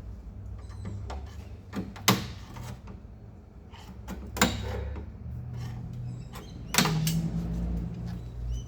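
Stainless outer window moulding being prised off an HQ Holden door, its plastic retaining clips letting go with three sharp snaps about two seconds apart, over a low steady hum.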